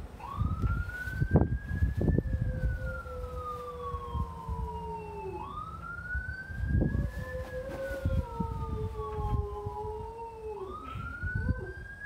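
Recorded ambulance siren wail played over a radio speaker: a slow rise in pitch, then a long fall, repeating about every five seconds. A second, lower wavering tone runs under it, with a low rumble beneath.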